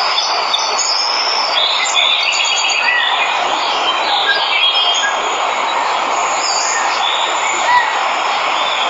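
Waterfall rushing steadily, with birds chirping and trilling over it and a few short whistled notes.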